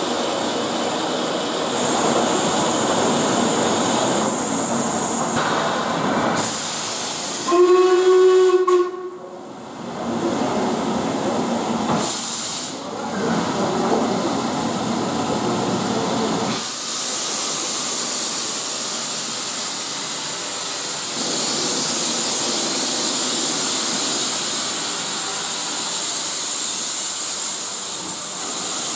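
Steam hissing from LMS Black Five 4-6-0 steam locomotives standing in the platform, broken about eight seconds in by one short, loud steam whistle blast. In the last third the hiss turns higher and louder.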